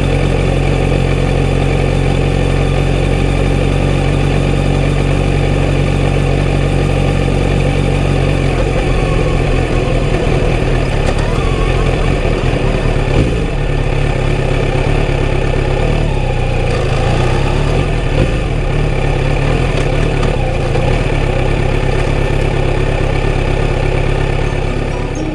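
Kawasaki Z900RS inline-four engine running through its stock full exhaust system, heard from the rider's seat. It holds a steady note for the first several seconds, then the pitch wavers and shifts as the throttle and speed change.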